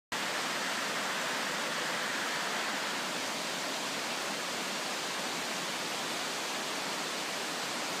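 Waterfall and cascades of water tumbling over rocks into pools: a steady, even rush of water.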